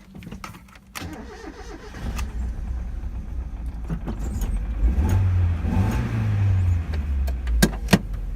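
Mazda Miata four-cylinder engine starting about two seconds in, then running with a low rumble that grows louder, with two sharp clicks near the end. It is running rough with a cylinder 4 misfire that the owner blames on a burnt ignition coil and wires; the fault code has just been cleared and he expects it to come back.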